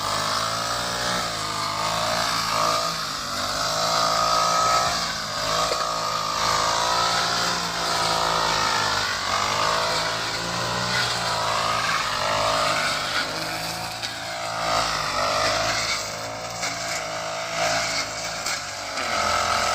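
Grass cutter's small engine running and cutting grass, its pitch rising and falling over and over as the load changes.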